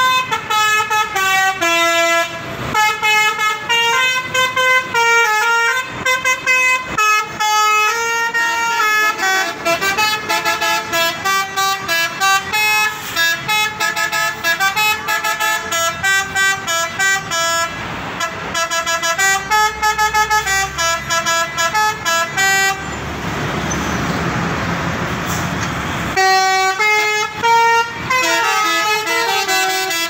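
Basuri telolet bus horn playing quick melodic runs of stepped notes, one tune after another with short breaks. About 23 seconds in, the tune gives way to roughly three seconds of steady rushing noise, then the horn starts again.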